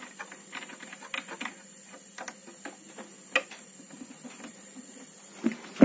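Scattered small metallic clicks and taps as a milling cutter is fitted into a key-cutting machine's cutter clamp and tightened by hand. There is a sharper click about three and a half seconds in and a louder one near the end.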